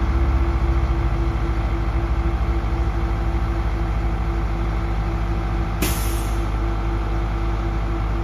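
A 2000 Terex RT 175 rough terrain crane's diesel engine running steadily, with a short sharp hiss of released air about six seconds in.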